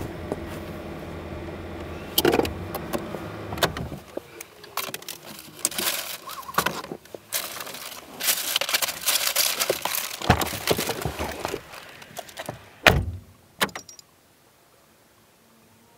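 Car engine running, then switched off about four seconds in. Keys jangle and a delivery bag rustles with scattered clicks, and a car door shuts with a loud thump near the end.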